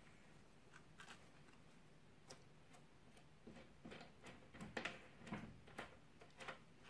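Faint, scattered clicks and light knocks of hands handling and fitting a clamping piece to a switched-off belt sander's mount on a workbench. They get busier and a little louder from about halfway, a few with a dull thud.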